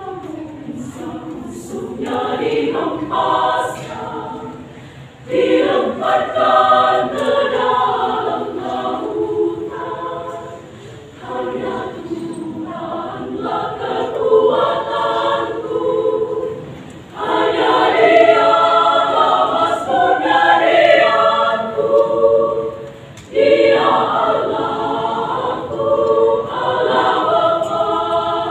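Women's choir singing in parts, phrase by phrase, with loud full entries about five, seventeen and twenty-three seconds in and softer passages between.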